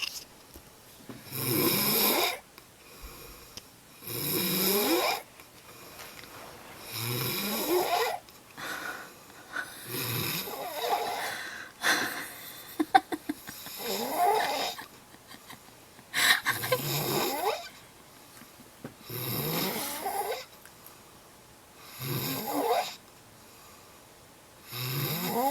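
A sleeping man snoring, one long snore about every three seconds, each rising in pitch, with a short run of clicks about halfway through.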